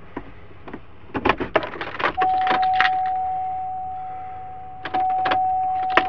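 Keys jangling and clicking as a key is worked into a GMC truck's ignition, then the truck's warning chime sounds as one steady tone that starts about two seconds in, fades slowly and sounds again about three seconds later.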